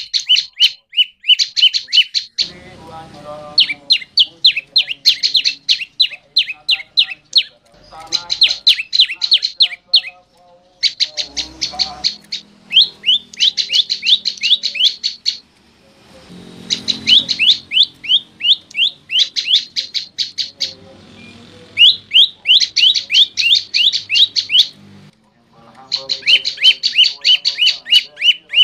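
Prenjak lumut songbird singing loudly: phrases of rapid, sharp high notes, about ten a second, each phrase a couple of seconds long with short pauses between.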